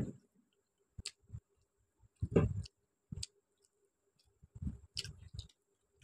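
Close-up eating sounds: chewing, with wet squishes and clicks of fingers mixing rice and chicken curry on a steel plate. They come in scattered short bursts, the loudest about two and a half seconds in.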